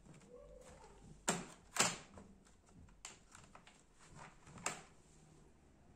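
Plastic snap clips of an Acer Aspire ES1-531 laptop's upper cover popping loose as a guitar pick pries the cover off: sharp clicks, the loudest two close together about a second in and another near the end, with lighter ticks between.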